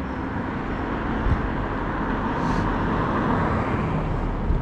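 Steady rolling noise of an electric off-road Segway riding over block paving: tyre rumble and road noise with no distinct engine note.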